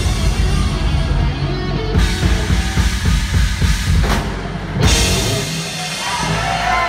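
A live heavy metal band ending a song, the drum kit pounding out fills with bass drum, then a cymbal crash about five seconds in. The music dies away and the first whoops from the audience come in near the end.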